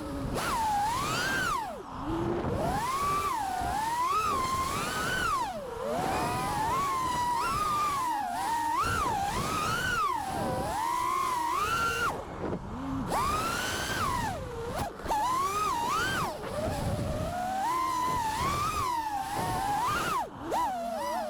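FPV quadcopter's brushless motors whining, the pitch rising and falling constantly as the throttle changes in flight.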